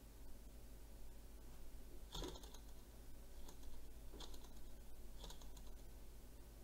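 A few faint, light clicks about a second apart, starting about two seconds in, as fingers touch the flywheel and linkage of a small model Stirling engine that is not running, over a low steady hum.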